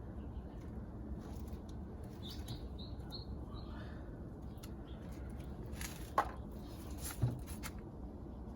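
Small birds chirping faintly over a steady low outdoor background, with two sharp clicks about six and seven seconds in.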